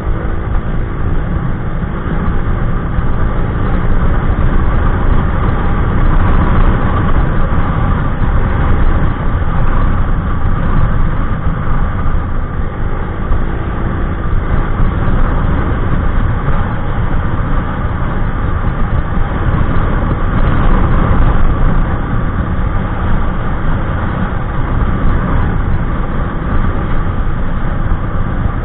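Honda Click 125i's single-cylinder engine running steadily at high speed through an aftermarket EXOS X6 exhaust, heard over heavy wind rushing across the microphone.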